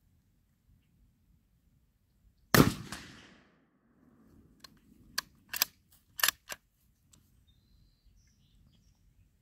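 A single shot from a short-barrelled Black Creek Labs Bison bolt-action rifle in .223 Remington: a sharp crack with about a second of echoing tail. About two seconds later comes a quick run of short metallic clicks as the bolt is worked to chamber the next round.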